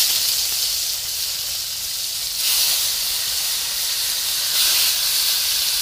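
Whole small fish frying in hot mustard oil in an iron kadhai: a loud, even sizzle starting as the first fish goes in, swelling again twice as more fish are laid in.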